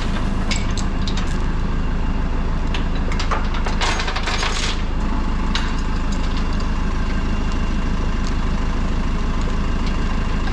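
Steel lifting chain clinking and rattling in several short bursts as it is wrapped and hooked around a semi truck's frame. Under it runs the steady idle of an engine.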